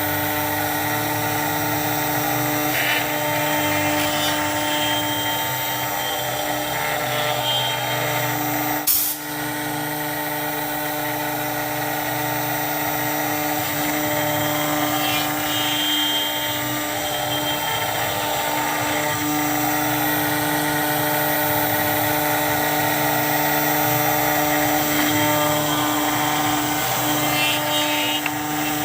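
CNC router spindle running steadily with a constant whine while the cutter mills UHMW plastic, the chip noise rising and falling slightly. A single sharp click about nine seconds in.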